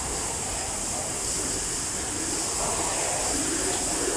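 Steady rushing background noise of a cattle shed, with faint voices murmuring in the second half.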